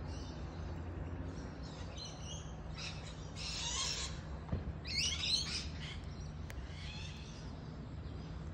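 Wild birds chirping and calling in several short bursts of high twittering, the loudest about three and five seconds in, over a steady low background hum.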